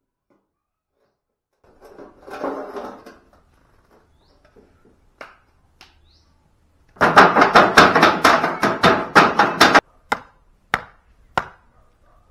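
A brief scrape about two seconds in, then a quick run of sharp strikes, about four a second, that stops abruptly. After that come single hatchet chops into wood, spaced well apart.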